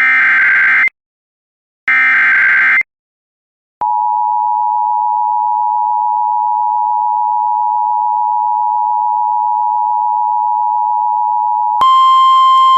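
Emergency Alert System SAME header data bursts: two short, harsh warbling bursts about a second apart. These are followed by the steady two-tone EAS attention signal, held for about eight seconds. Near the end it switches to a brief single higher tone.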